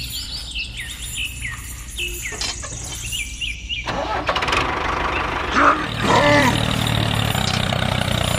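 Tractor engine starting about four seconds in and then running steadily with a low rumble, a sound effect laid over a toy tractor. Before it, repeated short bird chirps.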